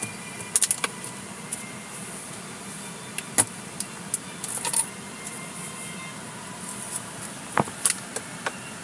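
Steady background noise inside a waiting car, broken by scattered sharp clicks and taps. The loudest tap comes about three and a half seconds in, and a quick cluster follows about a second later.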